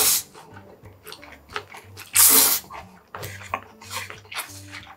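Yakisoba noodles slurped loudly in a half-second rush about two seconds in, with wet chewing clicks and smacks around it.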